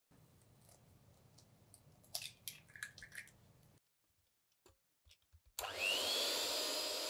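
Electric stand mixer with a wire whisk switching on a little after halfway, its motor whine rising as it comes up to speed, then running steadily as it beats an egg into creamed butter and sugar. Before that, a faint low hum and a few light clicks and taps.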